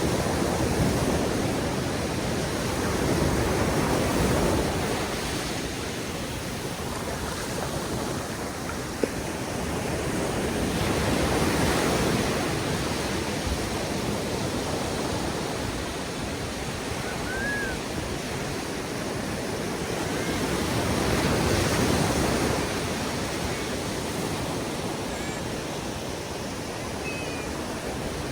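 Ocean surf breaking on a sandy beach, a steady wash of water that swells and ebbs as each wave comes in, every several seconds.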